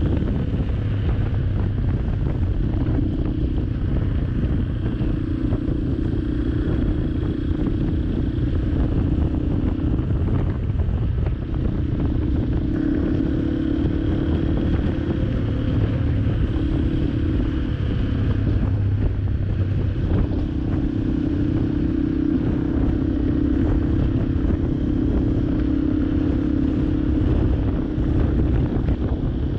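Yamaha Serow 250's air-cooled single-cylinder engine running through an FMF PowerCore 4 exhaust while cruising on the road. Its note holds steady, easing off and picking back up twice, about ten seconds in and again near twenty seconds, with wind rushing over the microphone.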